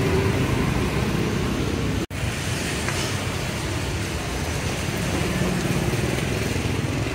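Steady street traffic noise with motor vehicles running past. The sound drops out for an instant about two seconds in.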